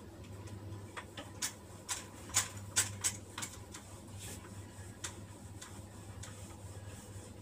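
Whiteboard being wiped clean with a cloth duster, the strokes making a run of short clicks and knocks, most of them in the first half. A faint steady hum lies underneath.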